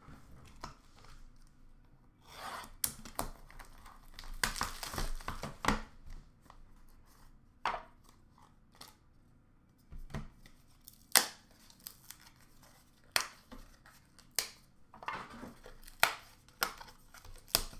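Packaging of a hockey card box torn and rustled open, followed by a series of sharp clicks and taps as cards and clear plastic card cases are handled.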